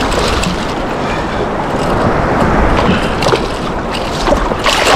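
Wind buffeting the microphone and surf water washing around, with a hooked speckled trout splashing at the surface as it is reeled in close; a few sharper splashes stand out in the last couple of seconds.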